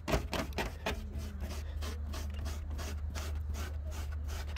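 Rubber-bladed Lilly Brush pet-hair remover scrubbed quickly back and forth over car carpet, about four or five strokes a second, over a steady low hum. The strokes are pulling dog hair out of the carpet pile.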